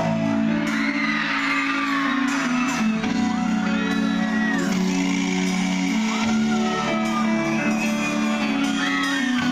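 A Mexican cumbia band playing, with held keyboard chords and shouts and whoops over the music.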